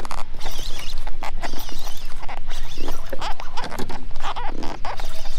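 Fishing reel working against a hooked fish, line being reeled in or pulled off the drag: a rapid, uneven run of clicks and rasps.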